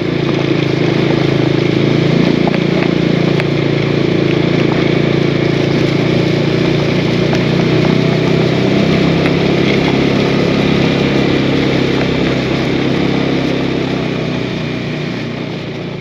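Motor vehicle engine running steadily while travelling, building up in the first second and fading out over the last few seconds.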